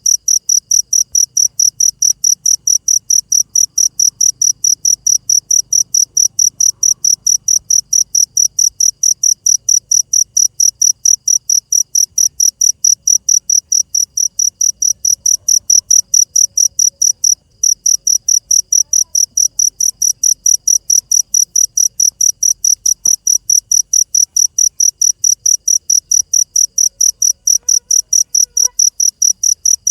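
A cricket chirping loudly and steadily, about four high chirps a second, with one brief break a little past halfway.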